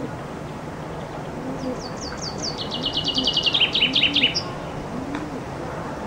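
Common chaffinch singing one full song of about three seconds, starting about a second and a half in: a run of high notes that speeds into a fast trill, steps down in pitch and ends in a short high flourish.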